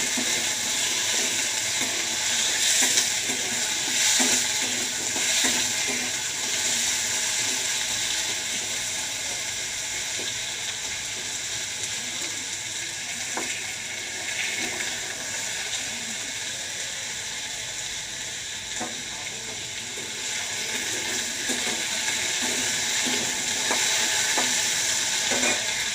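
Diced potatoes sizzling steadily in hot mustard oil in a steel karai, with a metal spatula now and then scraping and tapping the pan as they are turned.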